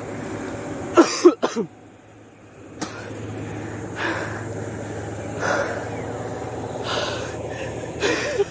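A cyclist breathing hard while pedalling uphill, with loud heavy exhalations about every second and a half. There is a brief strained vocal grunt about a second in.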